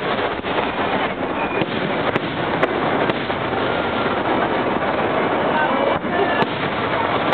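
Fireworks display: several sharp bangs scattered through a steady wash of crowd noise, with voices in the crowd.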